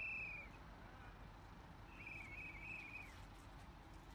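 Two high, rapidly pulsed trills from a small animal over a faint low rumble: a short one right at the start and a longer, slightly wavering one about two seconds in.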